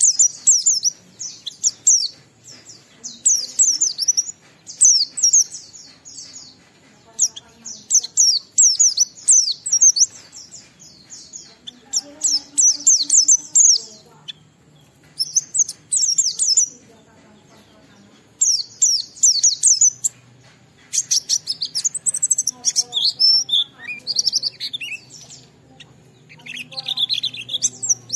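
Pleci (white-eye, Zosterops) singing in the long, varied 'ngalas' style: rapid, high twittering chirps in phrases of one to two seconds with short pauses between them.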